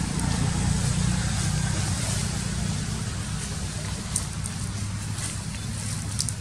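Wind buffeting the microphone: a fluttering low rumble over a steady hiss, with a few sharp crackles of dry leaves about four, five and six seconds in.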